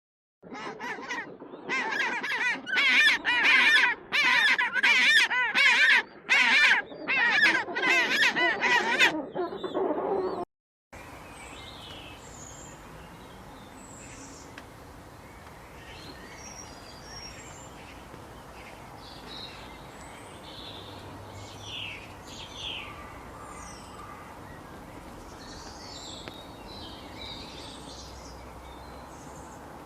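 Loud animal calls repeated in wavering bursts of about a second for some ten seconds, then cutting off sharply. After that comes a quieter steady background with scattered short, high bird chirps.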